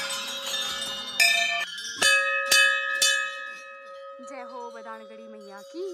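Large hanging temple bell struck several times in quick succession, its tone ringing on long after each stroke.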